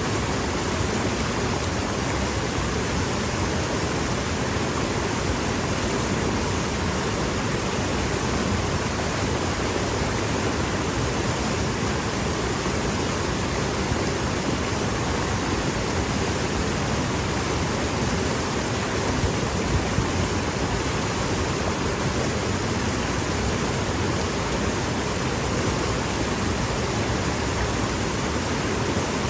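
Mountain stream rushing steadily over and around boulders, an even, unbroken rush of water.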